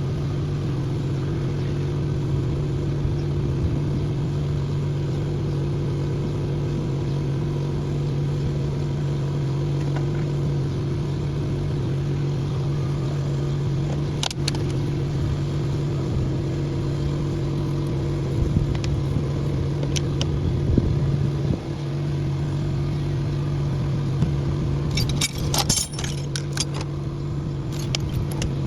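Steady, unchanging engine hum, with a few sharp metallic clinks and a brief cluster of jangling clinks near the end.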